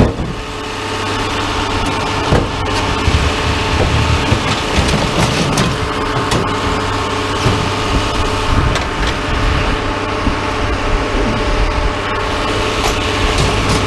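An engine idling steadily, with scattered knocks and clanks as scrap metal is unloaded from a truck.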